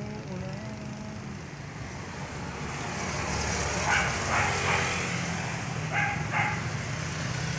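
A car driving past on the street, its engine and tyre noise swelling to its loudest about four seconds in. A few short, sharp noises sound over it around four and six seconds in.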